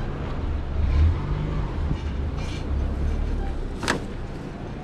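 Small hatchback's engine running at low speed close by as the car creeps across the street and pulls away, a low rumble that swells about a second in and fades. A sharp click comes near the end.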